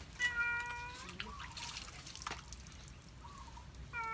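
Puppy whining during its bath: one steady, high cry under a second long, starting just after the start, with a second cry beginning near the end. Water drips and splashes from the bucket in between.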